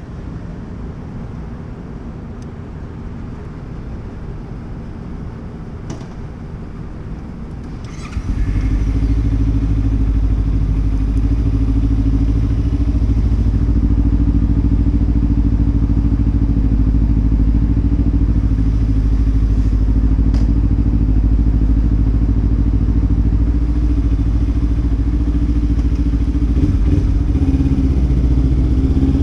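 Kawasaki Ninja 300 parallel-twin engine idling steadily. About eight seconds in there is a brief click, and from then on the engine is much louder and closer.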